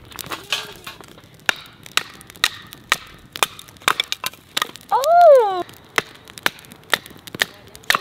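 Batoning kindling: a wooden baton knocks repeatedly on the spine of a knife driven into a stick of firewood, splitting it. The sharp wooden knocks are irregular, about one or two a second.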